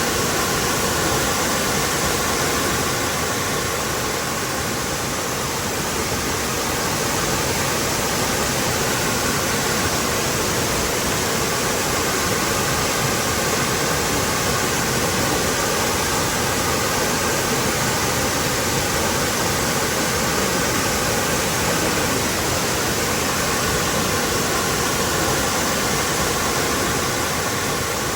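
Waterfall pouring steadily, a dense even rush of falling water without breaks or changes.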